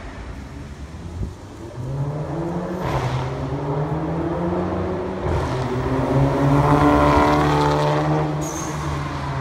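Audi A3 2.0T's turbocharged four-cylinder through a titanium valved catback exhaust, driving past under acceleration. The engine note builds from about two seconds in, climbs in pitch and is loudest around seven seconds in, then eases as it moves away.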